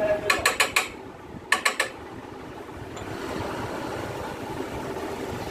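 Quick runs of sharp metallic clicks as the armature of a Honda Shine motorcycle starter motor is worked out of its housing: four clicks in fast succession, then three more about a second later, over a steady background rush.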